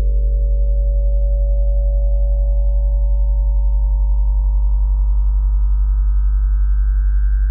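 Computer-generated sine tones. A loud, steady deep hum sits near 43 Hz, the Sirius A–B orbital cycle doubled up into hearing range. Above it a cluster of fainter, higher tones slowly glides up in pitch.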